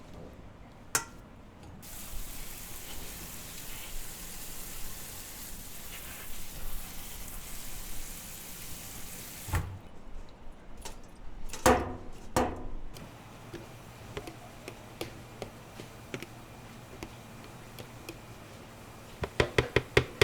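A kitchen tap running for several seconds, then stopping, followed by a few knocks and clatters of kitchen utensils and, near the end, a quick run of about six sharp knocks.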